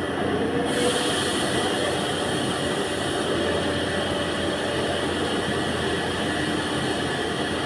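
Steady running drone of a vehicle's drivetrain with faint humming tones through it, the rear-differential hum.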